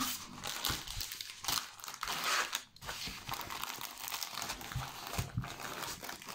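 Diamond-painting canvas sheet being rolled up and handled in its plastic packaging: irregular crinkling and rustling of paper and plastic, with a few soft knocks against the table.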